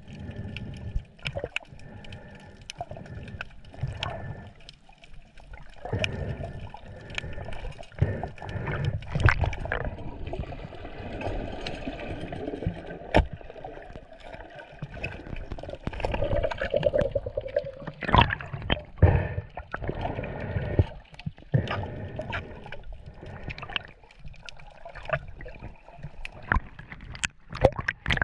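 Seawater sloshing and gurgling, broken by many irregular clicks and knocks.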